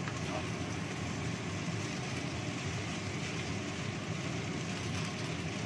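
Steady noise of stir-frying: rice vermicelli and cabbage sizzling in a wok over a gas burner, with a low, even rumble and no breaks.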